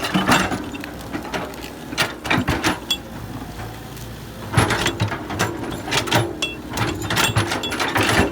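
Irregular clicking, knocking and rattling of a small mechanism, in uneven clusters.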